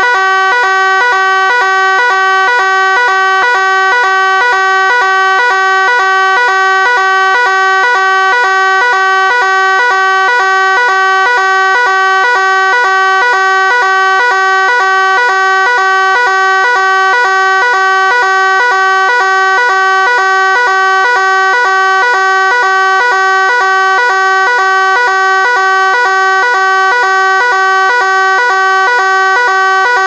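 French AFNOR NF S 32-001 fire evacuation alarm sounding continuously: a loud electronic tone pattern repeating quickly and evenly without change. This standard signal orders the evacuation of a building open to the public or to workers.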